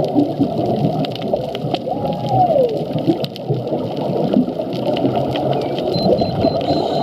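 Humpback whale call heard underwater: about two seconds in, one tone is held briefly and then slides down in pitch. Near the end a fainter, higher call follows. All of it sits over a steady underwater rumble with scattered clicks.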